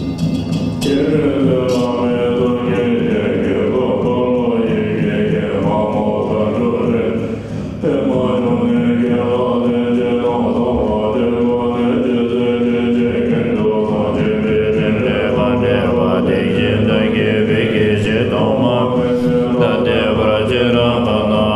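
Buddhist mantra chanted in a slow, melodic line, sung in long phrases with a brief break about seven and a half seconds in. It takes over from instrumental music about a second in.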